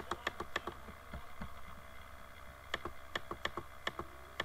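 Scattered sharp computer clicks over a faint steady hum: several in the first second, then a run of about seven clicks from a little under three seconds in, as the document is scrolled.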